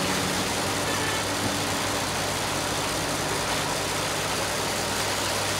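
Boat engine running steadily: a constant low hum that holds one pitch, over a wash of noise.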